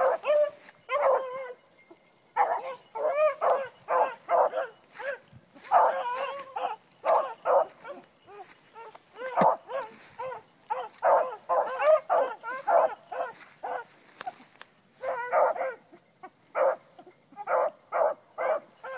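Beagles baying in quick, repeated calls, with a couple of short lulls.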